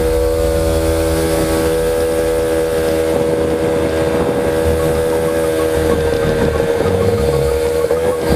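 63cc two-stroke goped (gas stand-up scooter) engine running under way at steady revs, with a brief dip in pitch near the end.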